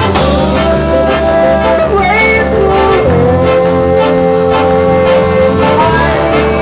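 A big band playing live: saxophones, trumpets and trombones over bass, drums, guitar and keyboards, with long held notes in the lead line.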